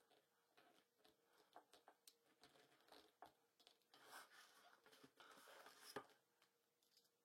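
Faint handling noise of vinyl wrap being worked and trimmed: scattered light clicks, then a soft scraping rustle about four seconds in that ends with a sharper click near the end.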